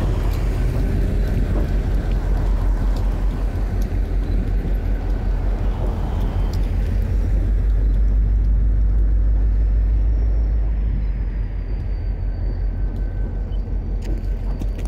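A CPKC diesel-electric freight locomotive running as it pulls away, a steady low rumble that fades somewhat near the end.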